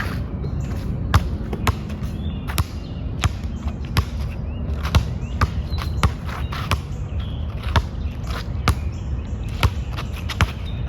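A basketball being dribbled, sharp bounces coming about twice a second, somewhat unevenly, over a steady low rumble.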